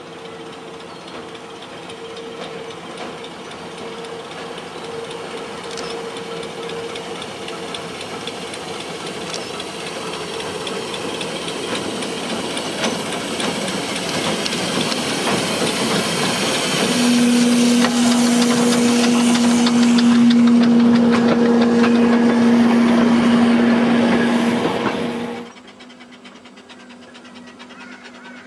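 The replica Mary Ann, a small vertical-boiler steam locomotive, works steadily closer with steam hiss and engine noise that grow louder. Over its last stretch a strong steady pitched note sounds for several seconds. The sound cuts off suddenly near the end.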